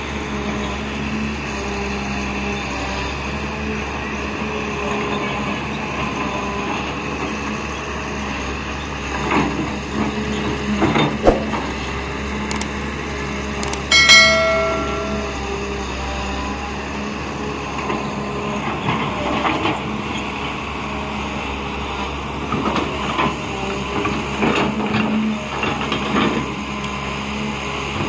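Caterpillar 320L hydraulic excavator's diesel engine running steadily as the machine digs sand, with scattered knocks and scrapes from the bucket and arm. About halfway through, a few sharp clicks and a short ringing chime.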